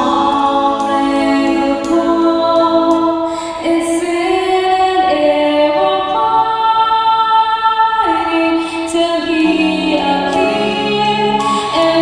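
Music: a recorded live show played back from multitrack recording, with singers holding long notes in several voices.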